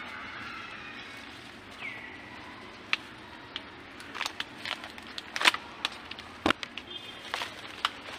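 A baby macaque gives one short high call about two seconds in. From about three seconds on comes an uneven run of sharp clicks and crackles, the loudest a little past the middle.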